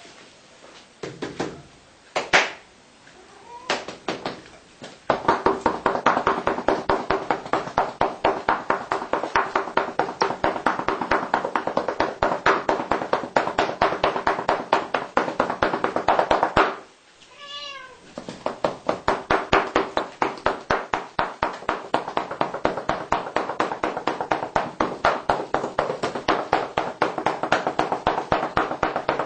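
A cat's rump being patted rapidly and rhythmically with a red object, several pats a second, while the cat meows along. The patting stops for about a second midway, and a single wavering meow sounds in the gap.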